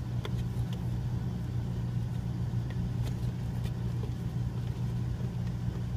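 A steady low mechanical hum, with a few faint clicks as spark plug wire boots are pressed onto the distributor cap terminals.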